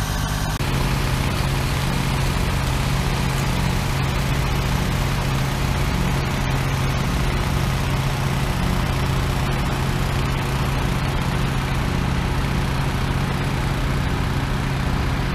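A large vehicle engine idling steadily close by, a continuous low hum with mechanical rumble.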